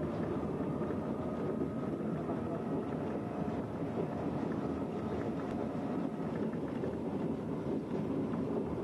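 Works rail drezine running along the track: a steady engine drone and rumble of the wheels on the rails, with a faint whine that rises slightly and fades out about six seconds in.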